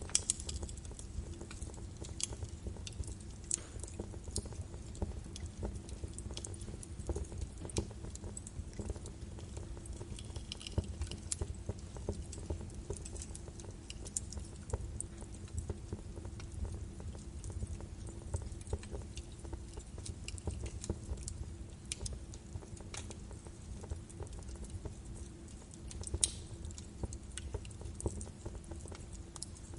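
Birch wood fire burning in a fireplace: irregular sharp crackles and pops over a low steady rumble of the flames, with a few louder pops near the start and about 26 seconds in.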